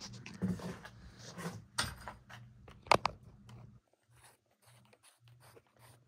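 A string of sharp clicks and knocks, the loudest about three seconds in, over a steady low electrical hum that drops out about four seconds in.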